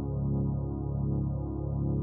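Ambient synthesizer music: a steady, sustained pad with a soft pulse repeating a little more than once a second.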